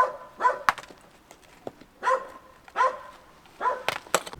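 Dog barking: about five short barks, spaced unevenly across a few seconds.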